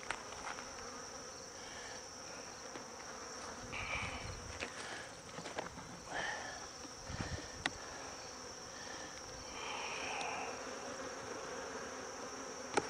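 Honeybees buzzing steadily around an open hive, with a few sharp clicks and knocks from the wooden frames being handled, the loudest near the end.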